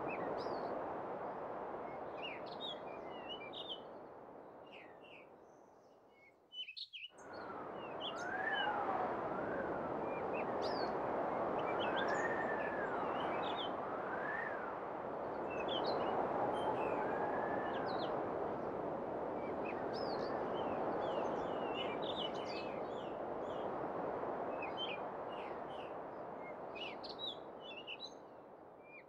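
Gusty wind buffeting the microphone, swelling and easing, with small birds chirping throughout. The wind briefly drops away about seven seconds in.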